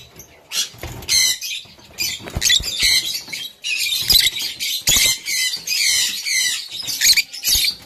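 A pair of peach-faced lovebirds giving rapid, harsh, chattering squawks over and over, with a few sharp knocks in between.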